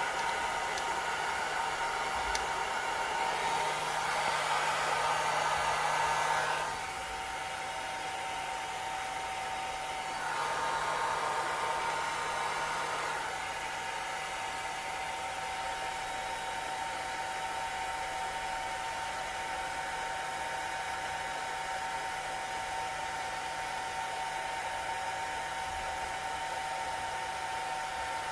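Electric heat gun's blower running steadily, a hiss with a faint whine in it, louder for a few seconds twice. It is heating a coolant temperature sensor whose resistance is falling as it warms.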